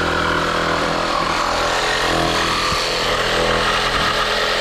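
Cordless power tool running steadily at a constant pitch as it cuts a hole through a motorcycle's plastic fairing.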